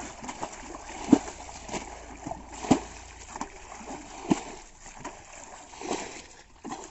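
Water splashing and sloshing in irregular strokes, about one a second, over a soft steady water hiss.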